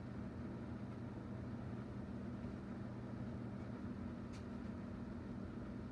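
Steady low hum of a running motor or electrical appliance, with one faint click about four seconds in.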